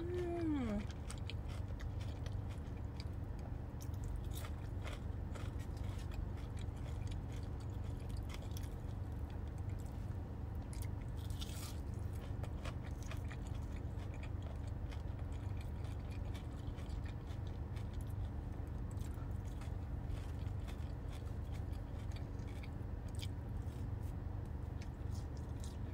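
Close-miked chewing and crunching of breaded fried shrimp and french fries, a scatter of small crunches over a steady low hum, with a short hummed 'mm' at the very start.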